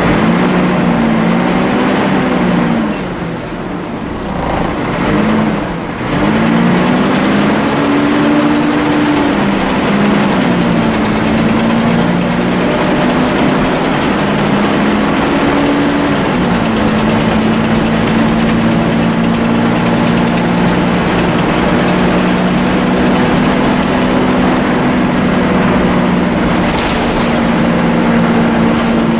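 Volvo B10BLE bus engine running under way, its whining note rising and falling several times as the bus pulls away and changes gear, dipping quieter briefly a few seconds in. For the second half it holds a steady pitch at cruising speed. The title calls this whine the bus's 'hoover' sound.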